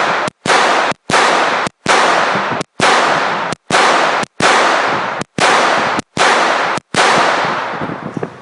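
Semi-automatic pistol fired in a steady string, about nine shots roughly one a second. Each very loud shot overloads the phone's microphone, so the sound drops out briefly after every report.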